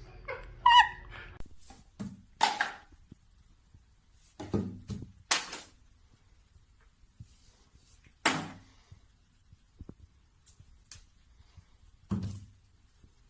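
A series of separate thumps and knocks, a second or more apart, with near quiet between them.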